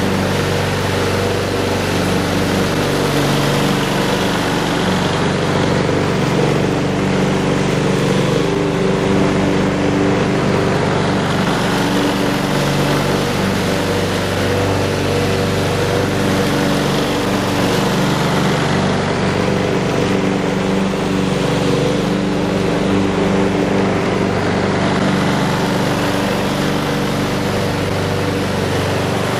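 Brill Hattrick petrol lawn mower's Briggs & Stratton Quantum single-cylinder four-stroke engine running at a steady speed while the mower is pushed across the lawn, cutting grass.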